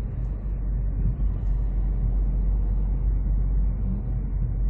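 Steady low road and engine noise inside a moving car's cabin.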